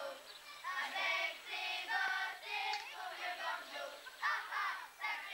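Children's voices singing together in high, short phrases.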